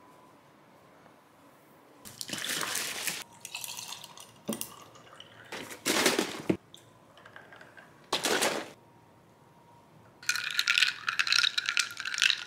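Kitchen sounds of coffee being made: three short bursts of running water, then a spell of clinking and rattling near the end.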